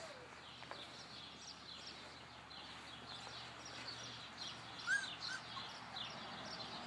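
Faint outdoor background with small birds chirping again and again, and a brief high squeak about five seconds in.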